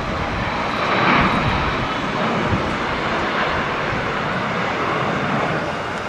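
Twin-engine wide-body jet airliner at takeoff thrust as it lifts off and climbs, its engines giving a steady jet roar that swells slightly about a second in.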